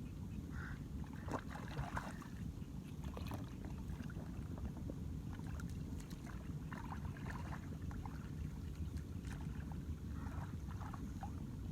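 Water splashing and sloshing in irregular bursts over a steady low rumble of wind on the microphone.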